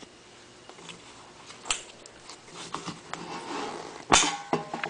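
Handling noises: scattered light clicks and rubbing as hands work the plastic squeeze-tab hose connectors on a charcoal canister, with one sharp click about four seconds in.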